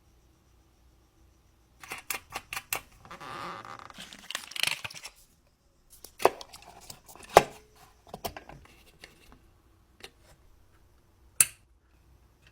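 Handling noises of small hard objects: a quick run of light clicks, a rustling scrape lasting about two seconds, then a few sharp knocks and clicks, with one last sharp click near the end.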